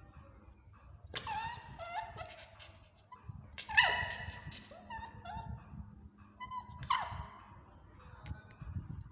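A small puppy making a series of high-pitched whining calls in short bursts, some sliding down in pitch, loudest about four seconds in.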